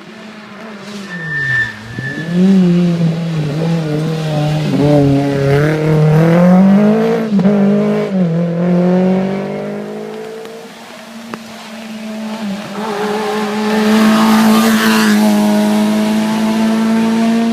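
Rally cars on a stage: one car's engine revs up and down repeatedly through gear changes and fades away, then a second car's engine rises and holds at high revs near the end.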